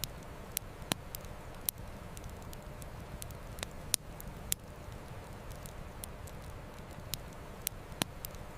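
Wood campfire crackling, with irregular sharp pops and snaps several times a second at most, over a steady low rush of a river flowing.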